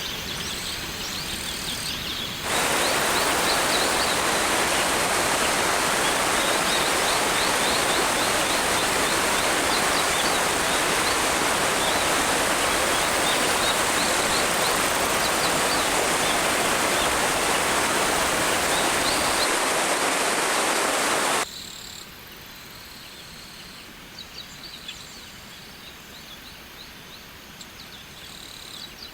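Waterfall rushing: a loud, steady wash of water noise that cuts in abruptly about two and a half seconds in and cuts out about twenty-one seconds in. Before and after it, a quieter flow of water with short, repeated high chirps.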